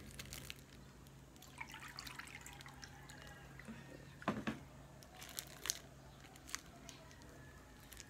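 Water trickling and dripping from a plastic jug into a plastic ice bag, with the thin bag crinkling as it is handled. A sharp knock comes about four seconds in, with a couple of smaller clicks after it.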